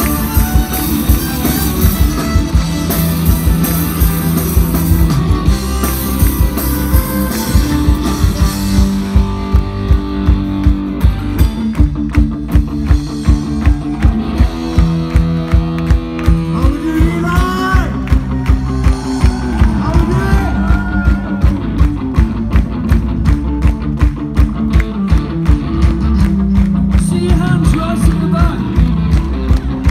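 Folk-punk band playing live and loud: guitars and bass over a steady drum beat of about two strokes a second, with a sung melody line in the middle.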